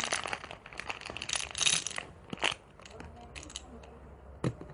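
Small hard candies clattering and clicking against the plastic of a toy candy vending machine as they are poured in, a quick run of rattles then scattered clicks and a single knock near the end.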